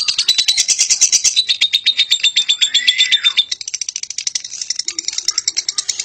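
Fischer's lovebird giving a long 'ngekek' chatter: a rapid, unbroken rattle of high notes, the long continuous song that keepers prize. It turns a little softer and quicker about halfway through.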